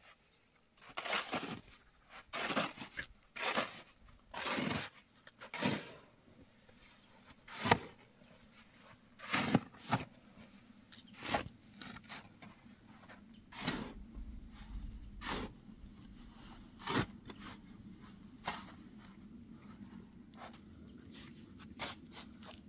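Steel shovel scraping and cutting into a pile of sand and cement, a dozen or so strokes about a second apart, louder in the first half and fainter later. A faint low hum comes in about halfway through.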